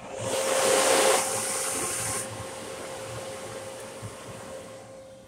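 Automatic car wash equipment hissing loudly: a spray or blast that swells up over the first second, drops off sharply about two seconds in, then fades away, over a steady hum.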